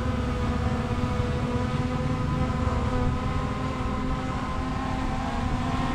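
Small camera drone's propellers whirring in flight: a steady hum made of several held tones.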